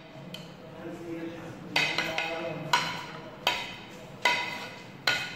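A metal spoon knocking against a stainless steel bowl as pomegranate arils are tipped in: about five sharp clinks, roughly one every three-quarters of a second, each ringing briefly.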